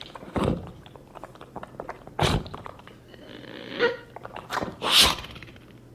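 Vocal sound effects made by mouth into a microphone, imitating rummaging through a bag: a string of short, sharp scraping and rustling noises, the loudest about five seconds in.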